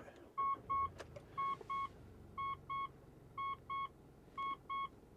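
Mitsubishi Shogun's dashboard warning chime: steady double beeps, one pair about every second.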